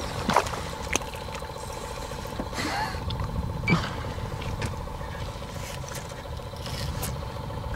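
A fishing boat's electric trolling motor humming steadily, with a few light knocks and scrapes in the boat in the first second and again around three seconds in.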